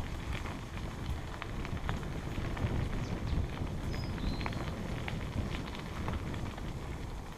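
Mountain bike riding over a bumpy dirt woodland trail: a steady low rumble of knobbly tyres and wind buffeting the microphone, with scattered rattles and clicks from the bike jolting over the ground.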